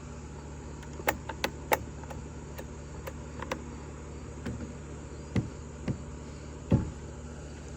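Sharp clicks and a few duller knocks from the chainsaw being handled, not running, over a steady low hum. The clicks come in a quick cluster about a second in, and the knocks come later.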